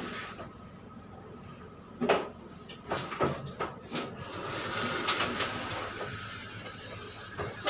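Several knocks and clunks against a stainless-steel grooming tub. Then a hand-held shower head starts spraying water, a steady hiss from about halfway through.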